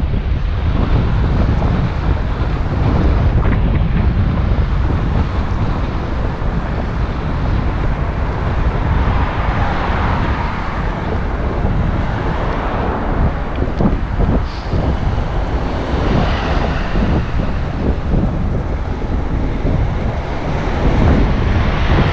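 Wind buffeting the microphone: a loud, steady low rumble, with the noise of road vehicles mixed in that swells now and then.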